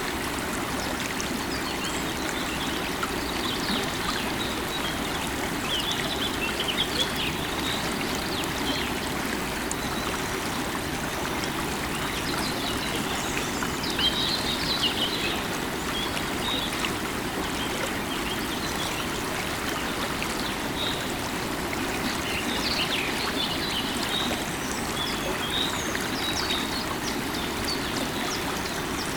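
River water running steadily over its bed, with small birds chirping in short bursts several times.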